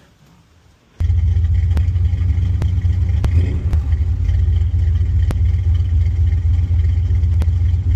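Carbureted engine idling steadily with a low rumble and a light regular tick, coming in suddenly about a second in. It is a strong idle, just adjusted and judged much better.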